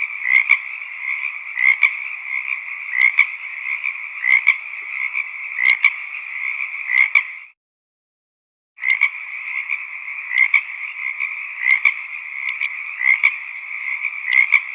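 A chorus of frogs croaking continuously, with louder individual calls standing out about every second. About halfway through the sound cuts off completely for a little over a second, then the chorus resumes.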